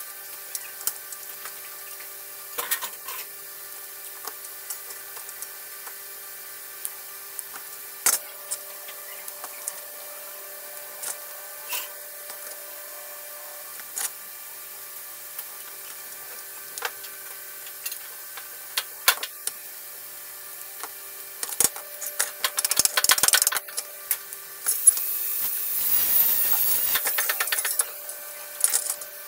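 Hand tools at work: scattered taps and clicks, then a few seconds of scraping near the end, over a steady hum.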